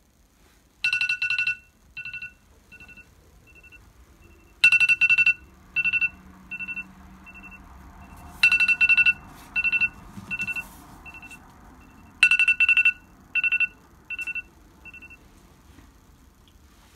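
iPhone alarm ringing: a burst of beeps about every four seconds, each trailing off in fainter repeats. It sounds four times, then stops.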